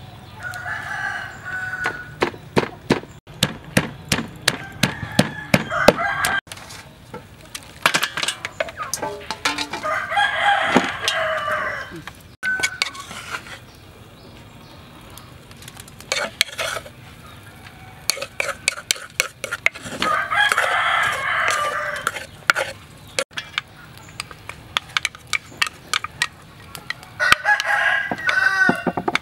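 A rooster crows about five times, each crow roughly two seconds long. Between and under the crows, runs of sharp knocks come from a wooden pestle pounding in a wooden mortar.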